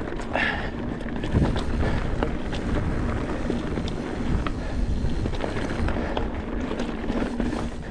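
Mountain bike riding over a rocky trail: steady wind noise on the microphone, with tyres rolling over rock and frequent small rattles and clicks from the bike.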